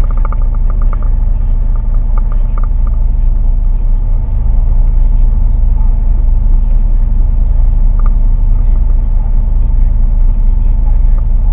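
Boat engine running steadily, a loud, even low drone, with a few short high squeaks or chirps over it.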